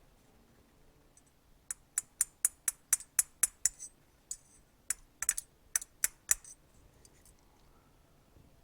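Small metal-tool clicks on a motorcycle carburetor body as a brass alignment pin is worked into its slot: a quick run of about ten sharp clicks, then a second shorter run of about six.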